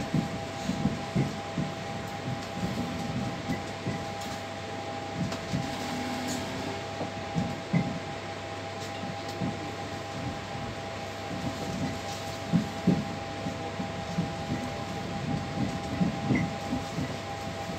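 Cabin of a PESA EN81 electric multiple unit on the move: a steady two-note electrical whine over the rumble of wheels on rail. Short irregular knocks come from the wheels running over the track.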